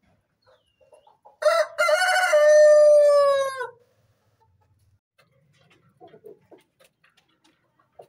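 A rooster crows once, about a second and a half in: a loud call lasting a little over two seconds that ends in a long held note dropping slightly at the close.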